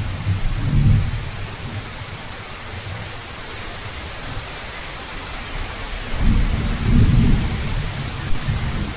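Heavy rain falling steadily, with low rolls of thunder: one dying away in the first second, and another building about six seconds in and rumbling for a couple of seconds.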